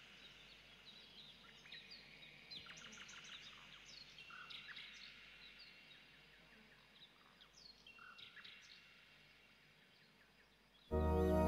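Several songbirds chirping and singing, with quick falling notes overlapping one another. A little before the end, soft new-age music with sustained chords comes in suddenly and much louder.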